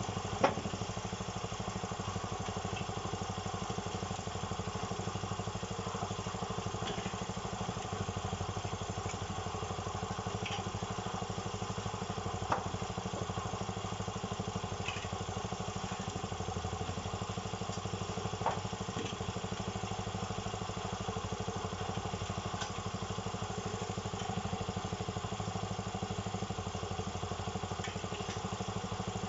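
Cement mixer running steadily, with a few sharp knocks along the way.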